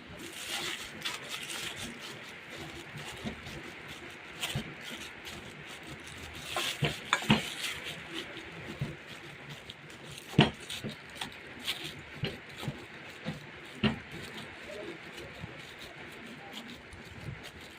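A kitchen utensil stirring and scraping in a cooking vessel, with irregular clinks and knocks against its sides. The knocks are loudest about a third of the way in, just past halfway, and near three-quarters of the way through.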